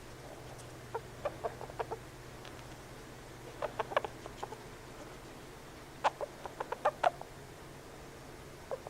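Pet hamster making short, sharp chirping noises in three quick runs of several each: about a second in, around four seconds in, and around six to seven seconds in.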